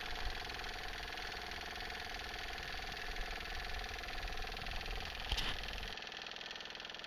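Small water pump on a rain-catch tote running with a steady hum while it fills a tank. There is one sharp click about five seconds in, and the sound drops to a quieter, thinner hum about a second before the end.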